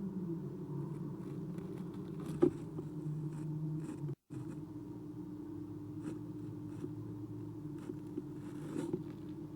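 Steady low hum from an owl-box camera microphone, with scattered faint scratches and clicks and one sharp click about two and a half seconds in. The sound cuts out completely for a moment just after four seconds.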